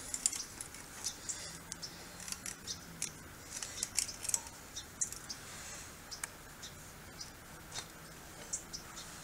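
Stiff steel wire being twisted by hand around a metal post and kennel panel wire: faint, irregular small clicks and scrapes of wire on metal, thinning out after about six seconds.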